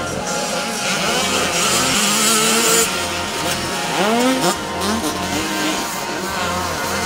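Motocross bikes racing with their engines revving. One engine climbs sharply in pitch about four seconds in.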